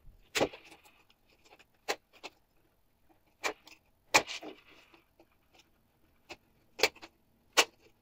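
Sharp clicks and taps of a metal hemostat clamp on the washing-machine door latch's metal pin and plastic housing. They come unevenly, about eight in all, as the clamp grips and works at the rod that holds the latch through its spring.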